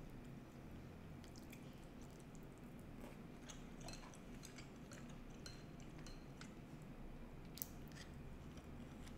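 Faint chewing of grilled meat, with scattered light clicks of chopsticks against the teeth and plate and one sharper click near the end, over a low steady hum.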